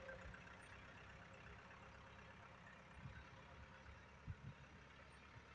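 Faint, steady running of a vehicle powered by a freshly overhauled Isuzu 4BE1 four-cylinder diesel on a test drive, with a few soft low thumps.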